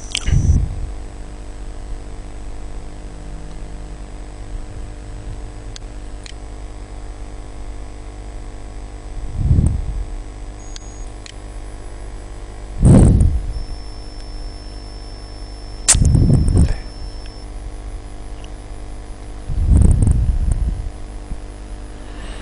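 Steady electrical hum with fan-like noise on a desk microphone. It is broken five times by short, loud puffs of noise on the microphone, each lasting about half a second to a second.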